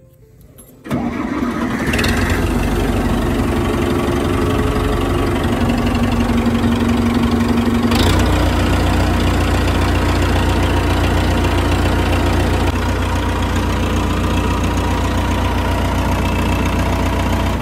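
Case 580B backhoe's Perkins diesel engine starting about a second in, then running steadily on fresh oil to circulate it through a new filter. Its note changes abruptly about eight seconds in, with the deep part of the sound growing stronger.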